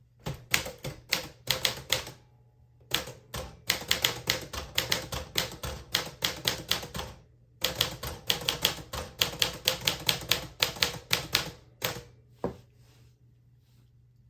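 A 1959 Smith Corona Sterling manual typewriter being typed on: quick runs of sharp type-bar strikes, about four to five a second, in three bursts with short pauses between, then a single last keystroke.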